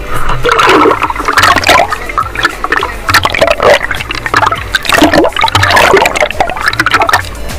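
Seawater splashing and sloshing right over a waterproof action camera held at the surface, with a swimmer kicking up spray close by. The splashing comes in repeated, uneven surges, and the camera dips under the water near the end.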